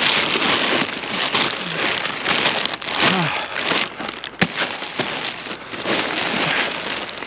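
Dense crackling and rustling of cardboard and debris being handled and shifted while rummaging through a scrap pile, with a sharp knock about four and a half seconds in.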